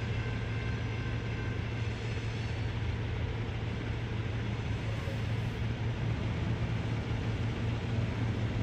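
Slow-moving freight train running past a grade crossing: a steady low drone, with a faint high wheel squeal that fades out in the first couple of seconds.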